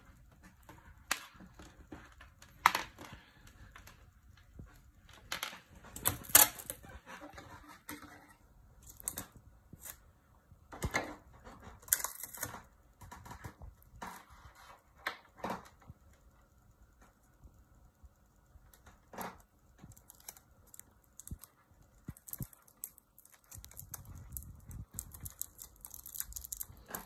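Irregular light clicks and taps of a wired earphone cable, its plastic plug and earbuds being handled and knocked against a wooden desk.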